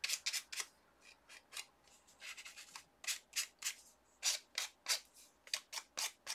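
A small handheld block rubbed against a die-cut paper piece in a quick series of short, scratchy strokes, with brief pauses between runs.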